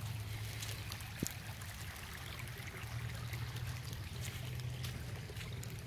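Storm runoff flowing in a small flooded creek: a steady stream and trickle of water with scattered small ticks and drips, over a constant low rumble.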